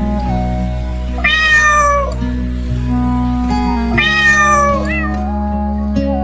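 A cat meowing twice, each meow drawn out for about a second and falling in pitch, the first about a second in and the second at about four seconds, over background music.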